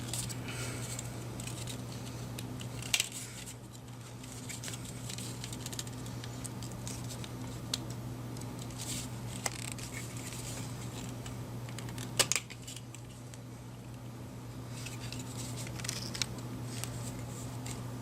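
Plastic tool-less hard drive bracket being flexed and pressed onto a 3.5-inch hard drive so its pins seat in the screw holes: scattered small clicks and creaks, with sharp snaps about three seconds in and about twelve seconds in, over a steady low hum.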